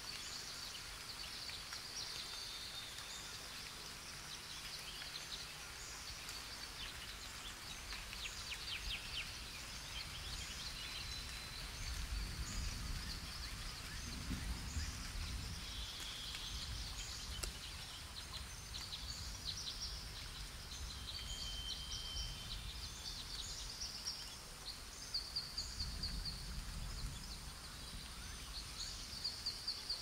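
Forest birdsong: several birds chirping and trilling in short phrases, over a faint steady high tone, with a low rumble coming in around the middle and again near the end.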